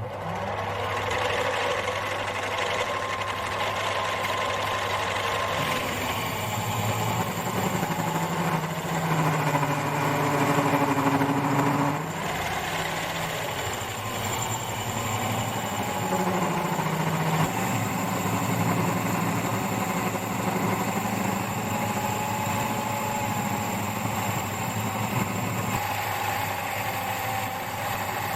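Metal lathe starting up and running steadily while machining a cast pulley, its motor hum joined by changing cutting tones that are loudest for a few seconds in the middle.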